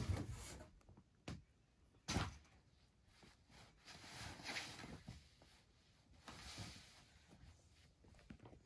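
Kittens scrambling on a pop-up fabric play tent: a sharp thump at the start and another about two seconds in as a kitten lands on it, then the tent's fabric rustling and scuffing as the cats tussle on it.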